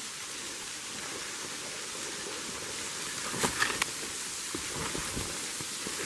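Footsteps and legs pushing through dry leaf litter and dead brush, with a short cluster of crackles about three and a half seconds in and a few more near five seconds, over a steady hiss.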